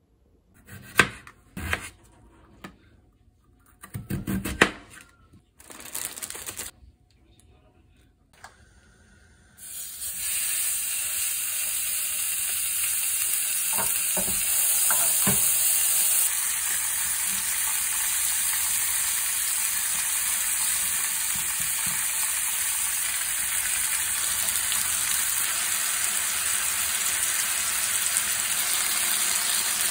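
Slices of pork belly sizzling in a hot grill pan: a loud, steady hiss that starts about a third of the way in and runs on evenly, with a couple of clicks of tongs on the pan soon after. Before it come a few seconds of scattered handling clicks and rustles.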